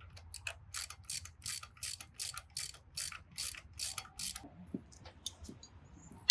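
Ratchet socket wrench clicking steadily, about three clicks a second, as its handle swings back while undoing a bolt; the clicking stops about four and a half seconds in. A sharp metallic clank right at the end.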